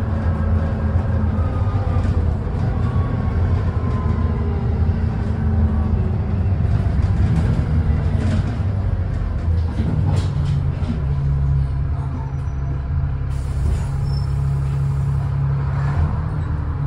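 Bus diesel engine heard from inside the saloon, its note falling as the bus slows, then settling into a steady idle at the stop about ten seconds in. A couple of seconds later comes a short hiss of compressed air.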